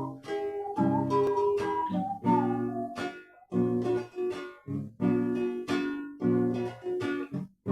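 Acoustic guitar strummed in a steady rhythm, with a high melody line over it that bends between notes; the music pauses briefly a little after three seconds in.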